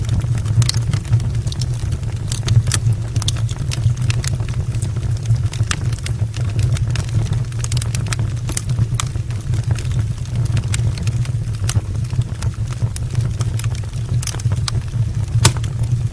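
Logs burning in an open brick fireplace: irregular sharp crackles and pops over a steady low rumble of the fire.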